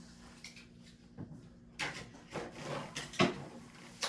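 Rustling and knocking of trash and card-pack wrappers being handled and pushed into a trash can, with a sharp knock about three seconds in.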